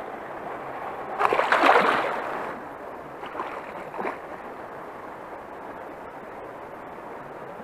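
A hooked fish thrashing at the water's surface: a loud burst of splashing about a second in lasting over a second, then two shorter splashes a couple of seconds later, over a steady rushing background.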